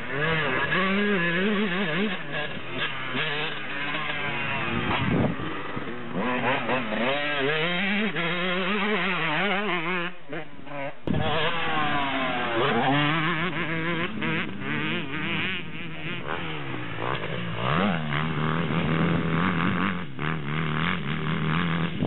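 Motocross dirt bike engine revving up and down as it is ridden hard round a dirt track and over jumps, the pitch rising and falling with the throttle. It drops away briefly about ten seconds in, then comes back suddenly.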